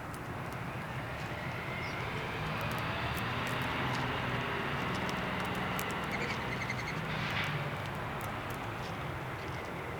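Distant engine noise of something passing, building up over a couple of seconds, loudest mid-way, then slowly fading.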